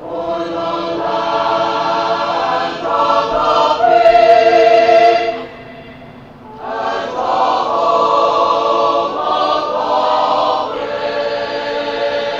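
Choir singing the national anthem in long held notes, with a break of about a second midway.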